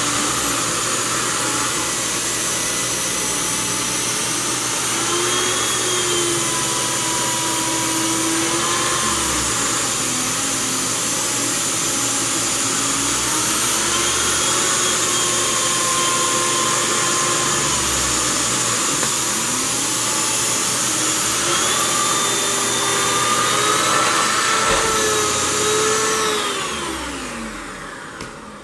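Dyson Cinetic Big Ball canister vacuum running with a DC23 air-driven turbo nozzle on carpet: a steady high whine over rushing air, with tones that slide up and down. Near the end it is switched off and winds down, falling in pitch.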